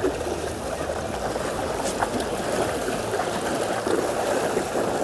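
Seawater sloshing and lapping against rocks and concrete blocks, a steady wash with a couple of faint clicks about two seconds in.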